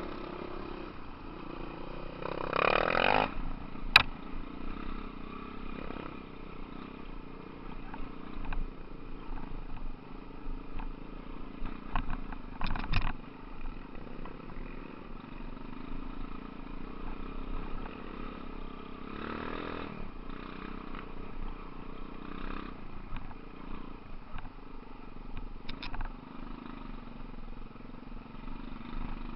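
Dirt bike engines running steadily, revving up in short swells about three seconds in and again around twenty seconds. A sharp knock sounds about four seconds in, and a few clatters come near the middle.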